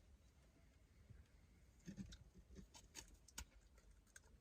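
Near silence: room tone with a few faint, short clicks and taps, about two, three and three and a half seconds in.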